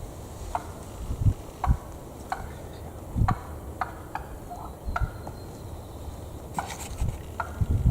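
Hen wild turkey calling: a scattered series of short, sharp notes, the excited calling of a hen at a downed tom. Several low thumps sound among the calls.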